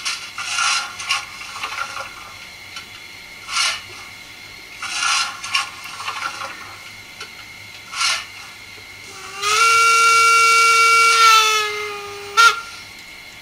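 Märklin sound decoder in an H0 model BR 01 steam locomotive playing through its small speaker: a few short hisses of steam, then a steam whistle held for about three seconds that sags in pitch as it ends. The freshly fitted decoder and speaker are working.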